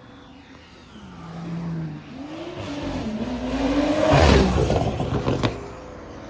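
A car accelerating hard past, its engine revving up, dipping briefly about two seconds in as it shifts, then climbing again to its loudest about four seconds in as it goes by, and fading. A single sharp crack near the end.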